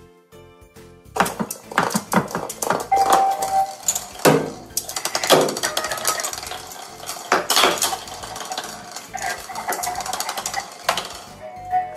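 Hard plastic light-up toy ball clattering and rolling across a tile floor as a dog bats and chases it, with the dog's claws scrabbling on the tiles. A couple of short tones sound about three seconds in and near the end.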